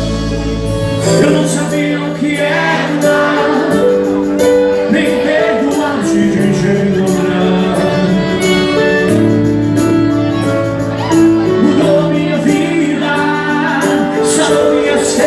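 Christian worship song: singing over sustained instrumental chords with a steady beat.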